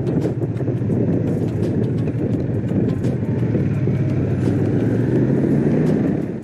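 Honda CX500's liquid-cooled V-twin engine running steadily under way on the road.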